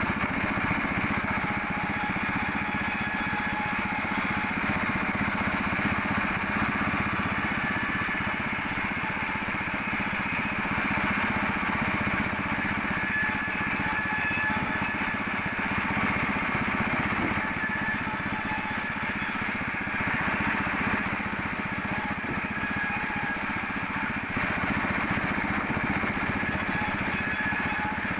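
Sawmill machinery running steadily with an even engine drone, no pauses or changes.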